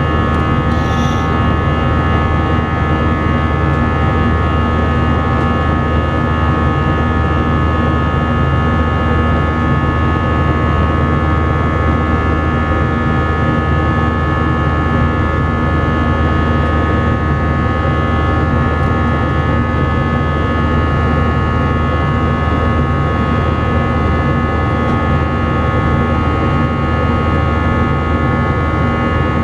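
Steady jet engine noise inside an Airbus A319's cabin: a constant low rumble and airflow roar with several steady whining engine tones over it, unchanging throughout.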